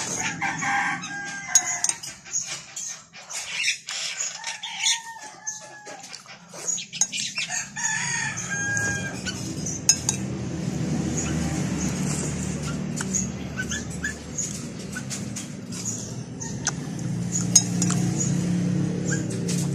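Roosters crowing, several drawn-out arching crows in the first half, over light clinks of a metal spoon against a ceramic bowl. From about halfway a low steady hum rises and becomes the loudest sound.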